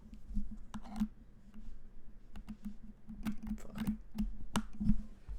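Mechanical keyboard with lubed and filmed Cherry MX Black Hyperglide linear switches on 85g springs being typed on: irregular keystrokes, each a click with a low thock, the loudest near the end.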